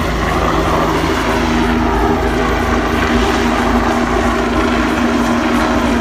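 Bell 429 GlobalRanger twin-engine helicopter climbing away after lift-off: loud, steady rotor noise with a steady whine that strengthens about a second and a half in.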